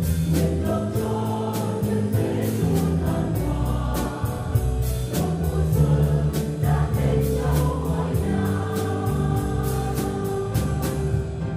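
Choir of men and women singing a hymn together, with a drum kit keeping a steady beat of about four strokes a second.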